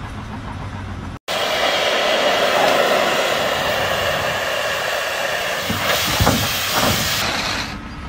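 Gas cutting torch burning through a thick steel roll, making a loud, steady hiss with a few crackles. It starts about a second in and stops shortly before the end.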